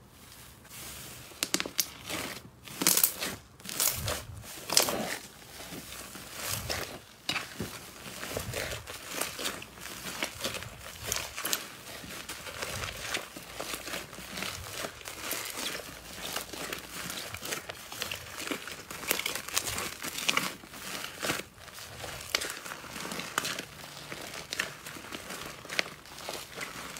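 Crunchy slime being squeezed and poked by hand, crackling with a dense stream of sharp little clicks and crinkles. The loudest cracks come in the first few seconds, then the crackling keeps up steadily.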